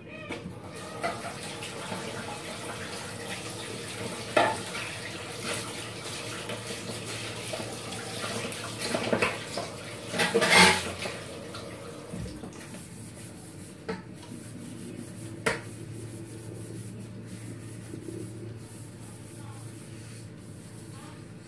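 Kitchen sink sounds: water running with dishes and cutlery clattering now and then, the loudest clatter about ten seconds in.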